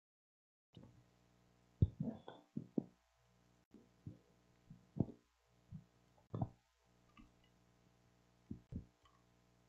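Irregular soft thumps and knocks, a dozen or so, over a steady electrical hum from the sound system; the sound cuts in a little under a second in.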